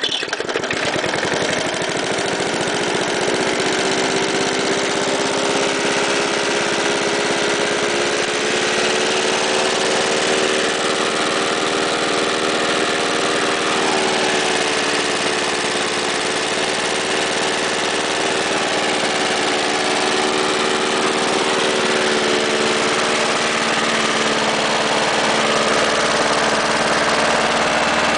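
1991 Briggs & Stratton 3.5 hp vertical-pull engine on a push lawn mower, just started warm, running steadily. Its speed climbs a little over the first few seconds and then holds even.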